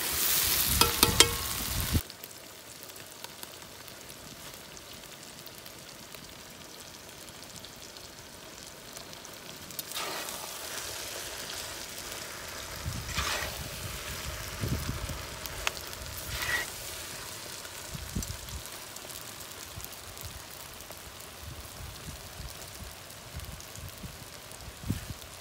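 Boiled noodles stir-fried with vegetables in a large black iron wok: a sizzle with metal spatulas scraping and clinking against the pan. It is loudest for the first two seconds, then quieter, and the stirring picks up again about ten seconds in.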